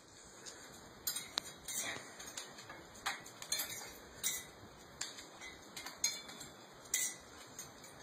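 Metal pet gate clinking and rattling as a small dog paws at its bars, in irregular sharp clicks, one or two a second.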